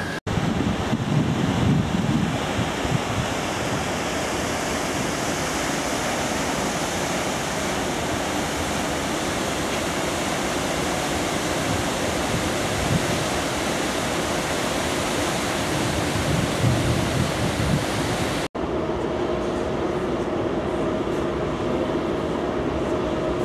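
Steady rush of wind and sea wash alongside a ship under way, with gusts buffeting the microphone now and then. After a cut about 18 seconds in, the rush goes on with a faint steady hum underneath.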